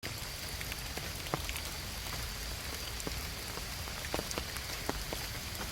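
Steady rain falling in a forest, an even hiss with single drops ticking sharply here and there at irregular times.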